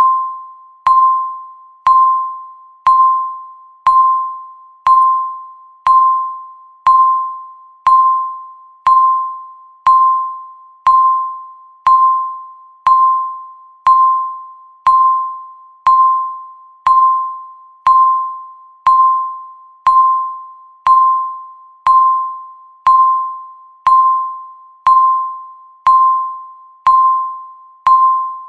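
Electronic countdown-timer tick: a short bell-like tone that strikes sharply and quickly fades away, repeated evenly once a second, each one marking a second counted down.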